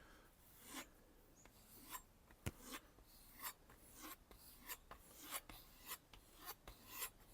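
Wüsthof kitchen knife blade being stroked back and forth on a soft kangaroo-tail leather strop, a faint rasping rub with each stroke, the strokes coming quicker, about two a second, in the second half. Stropping to refine the freshly sharpened edge.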